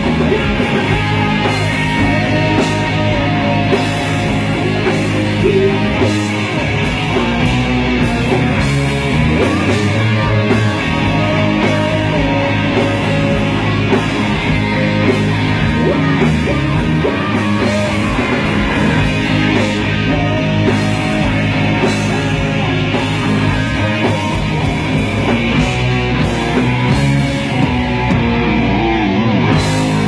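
Hard rock band playing live and loud: distorted electric guitars, bass guitar and drums.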